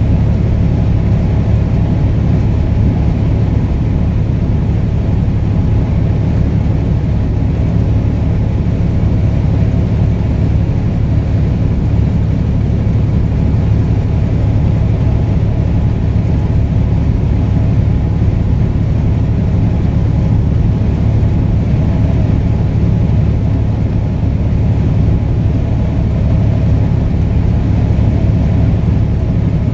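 Steady drone of a truck's engine and tyre noise heard inside the cab while cruising at highway speed, a low, even rumble that does not change.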